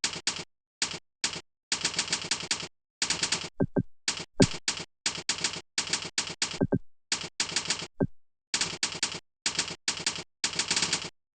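Fast typing on a computer keyboard: quick runs of key clicks broken by short pauses, with a few short downward-sliding tones mixed in.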